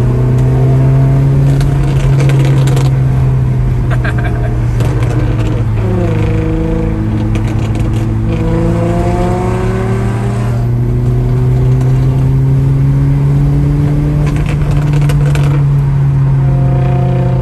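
Audi B8 S4's supercharged 3.0 V6 running through a loud aftermarket-tuned exhaust, its note climbing under acceleration and dropping sharply at gear changes about six and eight and a half seconds in. A few sharp pops and crackles come through the exhaust along the way.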